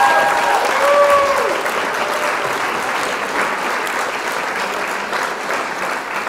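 Crowd applauding, a dense patter of many hands clapping, with a few voices calling out in the first second or so; it slowly fades away near the end.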